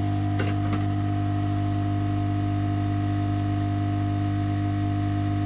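Hot air gun's blower running at low airflow, a steady hum with a faint airy hiss, as plastic filler is melted onto the joint. Two small clicks come under a second in.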